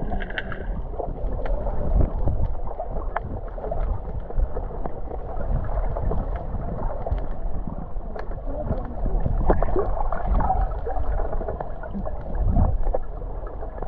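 Muffled underwater noise from a camera held under the sea: a steady low rumble of moving water with gurgles and scattered small clicks and knocks.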